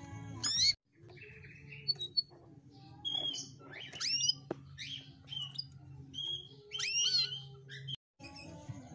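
Female domestic canary giving short chirps and rising call notes, spaced out with pauses rather than running into a continuous song, over a faint low hum.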